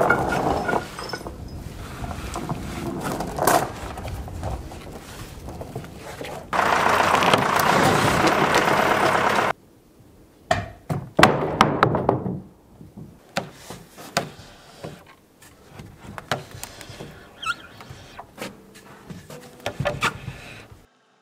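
Wooden knocks and thuds of poles and boards being handled on a plank roof deck, with footsteps on the planks. A few seconds of loud steady rushing noise come in the middle.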